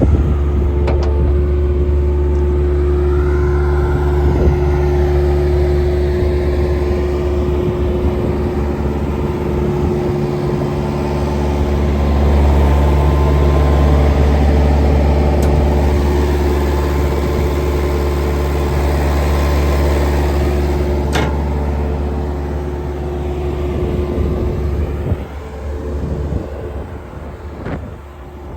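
Bobcat 763 F-Series skid steer's diesel engine running steadily with a low hum. It gets a little louder midway, then drops in level and turns uneven near the end.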